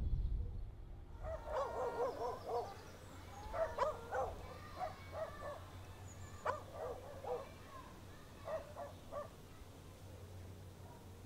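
A low rumble in the first second, then an animal calling in quick runs of short calls that rise and fall, for several seconds, dying away well before the end.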